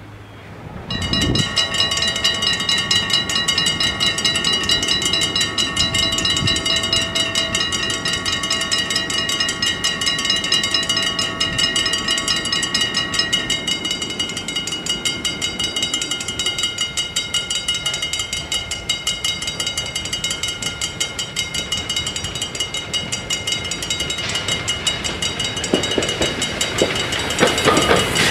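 Level-crossing warning bells start ringing about a second in, a rapid continuous clanging from several bells at once. About halfway through, once the barriers are down, some of the bells stop and the rest ring on. Near the end the rumble of an approaching steam train rises under the bells.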